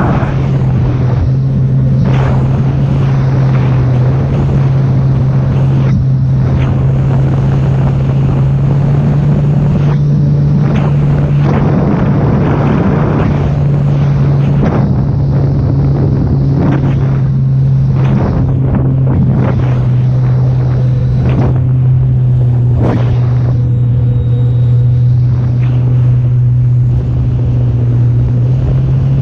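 Sea-Doo personal watercraft engine running at a steady, even pitch while under way, with gusts of wind buffeting the microphone.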